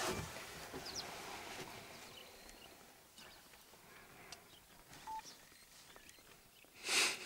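Faint open-air ambience with occasional short bird chirps, and a brief loud rush of noise about seven seconds in.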